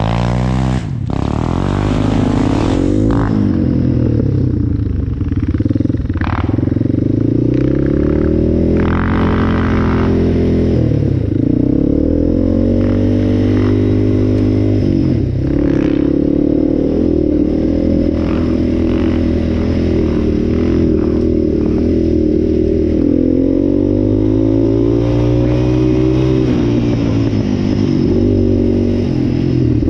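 Yamaha ATV engine under way, its revs rising and falling again and again as the throttle opens and closes, with occasional short knocks.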